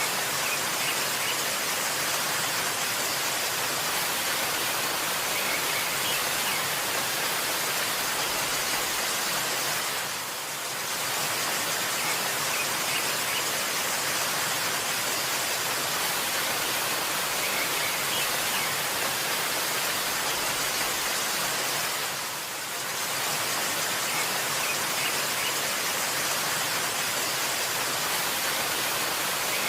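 Waterfall rushing in a steady, dense hiss of falling water, dipping briefly twice.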